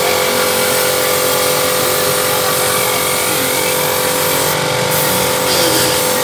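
Air-fed paint spray gun hissing as it sprays, over a steady machine hum of fixed pitch.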